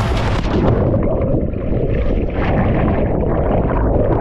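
Water splashing and churning right against the microphone, a sudden rush at the start followed by steady bubbling noise.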